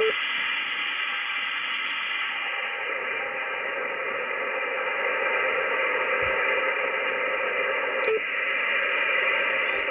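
HF shortwave radio receiver on a military band giving a steady wash of static and hiss with faint steady tones running through it; the Morse signals are down in the noise level. There are four faint high pips about four seconds in and a short click about eight seconds in.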